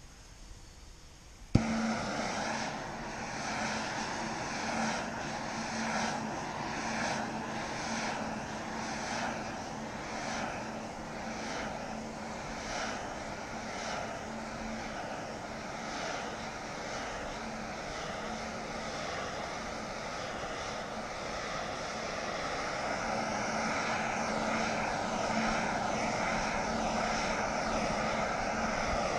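Propane shrink-wrap heat gun with a six-foot extension wand, the 'didgeridoo', lighting with a sharp click about a second and a half in. It then runs steadily: a loud rushing noise with a low steady hum through it, as it shrinks plastic wrap.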